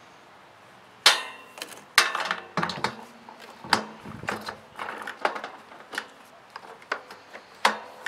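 Plastic motor head of a MacAllister wet-and-dry vacuum cleaner being set onto its stainless steel drum and latched shut: a string of sharp knocks and clacks at uneven intervals, the loudest about a second in.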